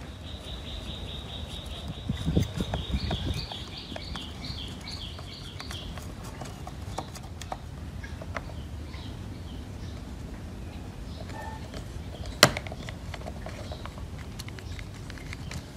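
Hands handling a plastic dome security camera: rubbing and knocking of the plastic housing, louder knocks about two to three seconds in, and one sharp click about twelve seconds in as parts are pressed together. A rapid, high chirping series of pulses runs through the first six seconds.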